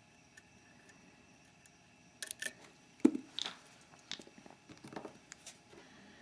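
Metal picking tools clicking and scraping inside a dimple euro cylinder lock (Mauer NW4) as it is picked: a scattered series of small sharp clicks and taps starting about two seconds in, the loudest one about three seconds in.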